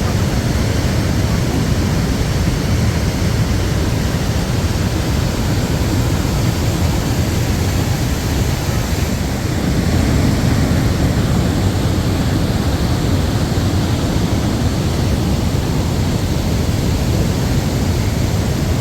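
Steady roar of Niagara Falls' water pouring into the gorge, a deep, even rush that holds its level throughout.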